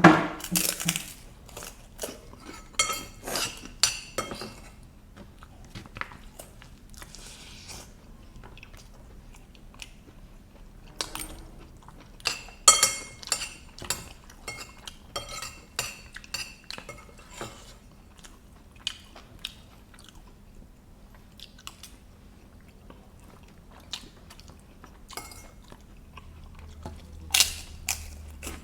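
Close-miked eating of wet fried noodles: chewing and crunching, with cutlery clicking and clinking on a plate in short clusters.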